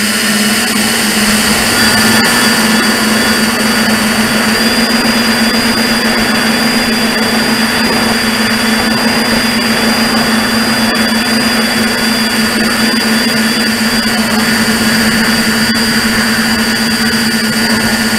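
A tricopter's three brushless motors and propellers in flight, heard from the camera on board: a loud, steady whine and hum with a rushing noise, holding a nearly steady pitch.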